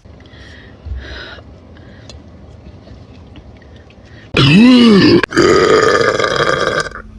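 Two loud burps from a girl about four seconds in: a short one whose pitch rises and falls, then a longer, steadier one lasting under two seconds.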